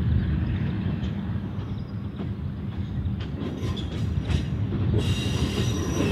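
Tulloch 600 hp diesel railcar moving slowly, its diesel engine giving a steady low rumble, with a few sharp clicks from the wheels over the track. About five seconds in, a high-pitched wheel squeal starts as the railcar rounds the curve.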